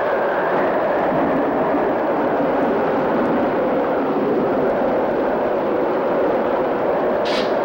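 Steady roar of hurricane-force wind and driving rain. Near the end, a few sharp bursts of hiss cut in over it.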